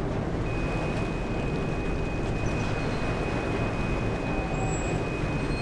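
Ship engines running with a steady low rumble under an even wash of water and wind noise. A thin, steady high whine comes in about half a second in and holds.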